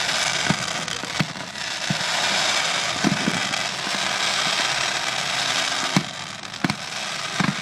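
Aerial fireworks display: about eight sharp booms of shells bursting at irregular intervals over a continuous hiss, recorded on a phone microphone.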